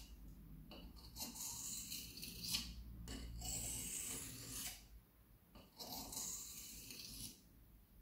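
Steel knife blade scraped lightly back and forth across the finer side of a wet whetstone, a faint gritty hiss in three runs of strokes with short pauses between them, stopping about a second before the end. The blade's bevel, damaged by a machine, is being ground back.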